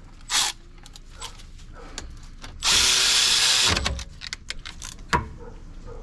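Power drill driving in a brake caliper bolt: one run of about a second that winds down as it stops, after a short burst about half a second in, with small metallic clicks of tool and parts around it.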